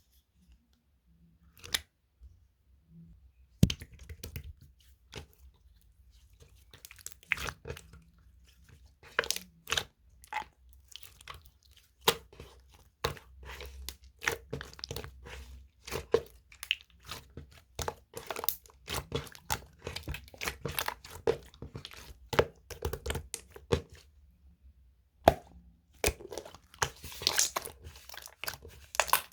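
Homemade slime being played with by hand: irregular sticky pops, clicks and crackles, starting a few seconds in and pausing briefly near the end.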